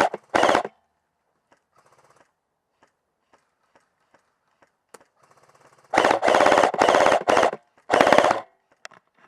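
Airsoft gun firing full-auto bursts of rapid clicks: two short bursts at the start, a long burst of about a second and a half around six seconds in, then another short burst near the end.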